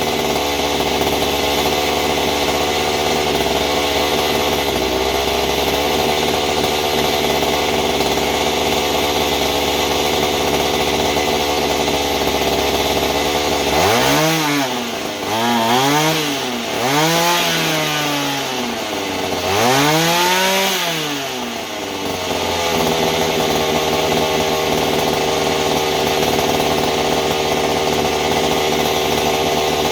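Mantis mini tiller's small engine running steadily, revved up and back down four times in quick succession about halfway through, then dropping back to its steady idle. It has just had its carburetor rebuilt, and the owner is struggling to get the idle to settle by adjusting the carburetor screws.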